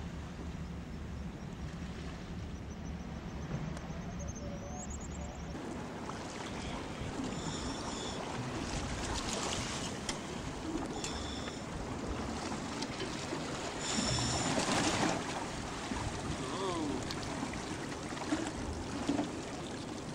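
Small boat's motor running with a steady low hum, then water washing and splashing around the hull from about five seconds in, with a few short high-pitched tones over it.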